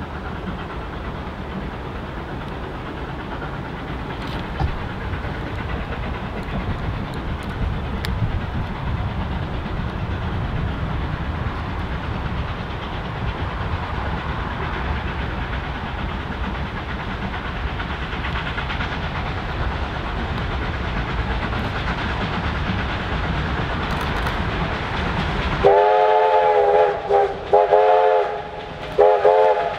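K-class steam locomotive working hard up a steep grade, its exhaust and running gear giving a steady rumbling noise. Near the end the steam whistle sounds three times: one long blast and two short ones.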